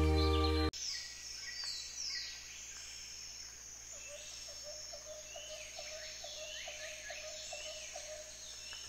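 A children's song's final chord cuts off suddenly within the first second. A nature ambience of birds chirping follows, made of short falling chirps. About halfway through, a lower, regular pulsing call joins in, about three pulses a second.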